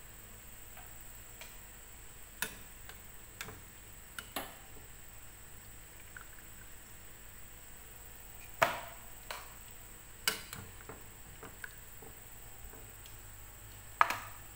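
Scattered clicks and knocks of kitchen tongs handling boiled chicken drumsticks as they are lifted from the pot and set down on a cutting board. Two knocks, one a little past the middle and one near the end, are louder than the rest.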